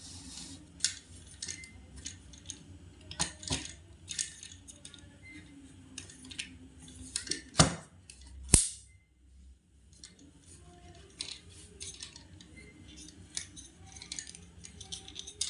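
Irregular clicks, taps and knocks of small plastic toys and their packaging being handled, with two louder knocks about seven and a half and eight and a half seconds in.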